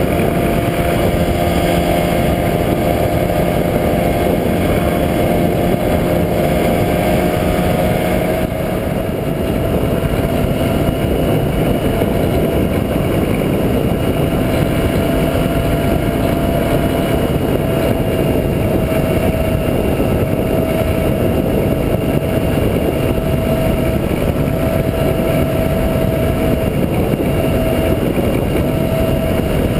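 Rotax 503 two-cylinder two-stroke engine of a microlight trike running steadily in flight, its drone mixed with dense wind noise. The engine note shifts to a new steady pitch about 8 seconds in.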